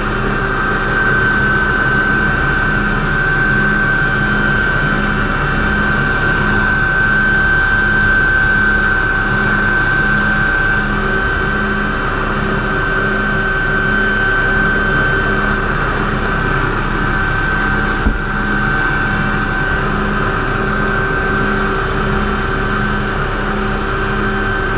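MD500C helicopter in flight, heard from inside the cockpit: the Allison 250 turboshaft's steady high whine over the even, pulsing beat of the rotor and drivetrain. A brief click comes about eighteen seconds in.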